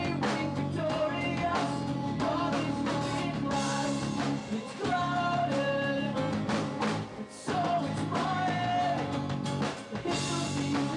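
A man singing into a microphone over a strummed acoustic guitar, a live acoustic rock song.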